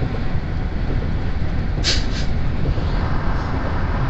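A car travelling at road speed: a steady low rumble of tyre and wind noise, with two short hisses about two seconds in.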